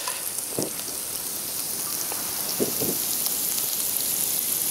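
Lemon, garlic and butter sauce sizzling steadily in a hot frying pan.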